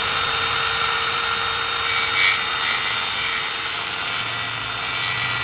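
Multi-purpose circular saw running at full speed, its blade cutting through a paper-laminated industrial wood panel in one pass: a steady high whine over a noisy cutting rush, briefly louder about two seconds in.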